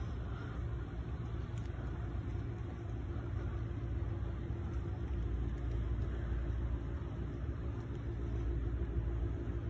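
Steady low rumble of wind buffeting the microphone, with a faint steady hum underneath.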